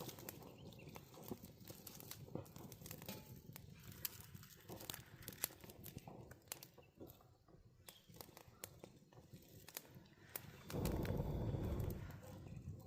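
Dry rustling and crackling with many scattered small snaps, as of dry corn leaves and husks being handled. A louder rush of noise lasts a little over a second near the end.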